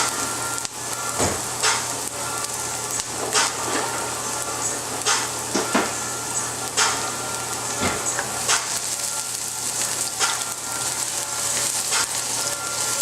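Diced garlic and onion sizzling in hot olive oil in a frying pan, a steady frying hiss. A utensil knocks and scrapes against the pan every second or two as the food is stirred.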